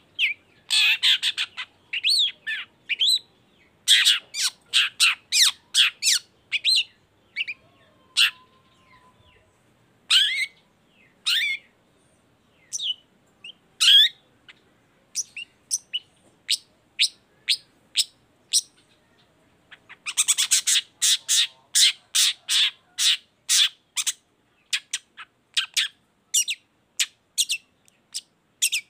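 A long-tailed shrike singing: runs of quick, short chattering notes broken by brief pauses, then a long unbroken run from about twenty seconds in.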